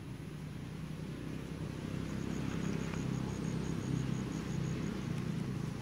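Steady low rumble that grows a little louder over the first few seconds, with a faint, rapid, evenly spaced high ticking in the middle.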